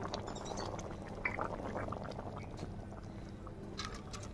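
Thin kofta curry bubbling in an aluminium kadai and then being poured out into a steel bowl, with a few light metal knocks of the pan against the bowl near the end.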